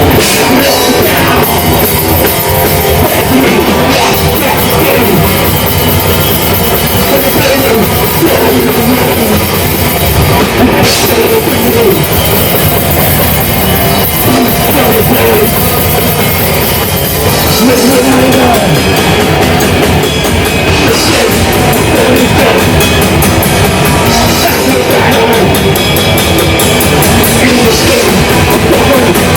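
Loud live death metal: a band playing with a drum kit and heavy guitars.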